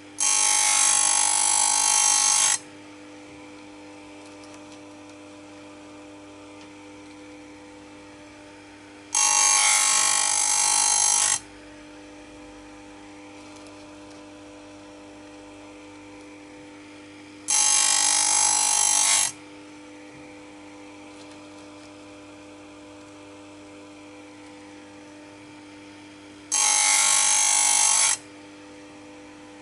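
Stihl USG chain grinder running with a steady motor hum, broken four times by a harsh grinding rasp of about two seconds each, roughly every nine seconds, as the spinning wheel is brought down onto the saw chain's teeth one after another.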